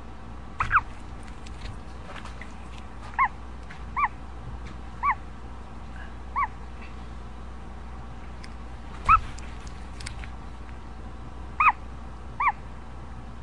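Ostrich chick peeping from inside its cracked egg as it hatches: about nine short, clear calls at irregular intervals, a couple of them in quick pairs, each a quick rise and fall in pitch.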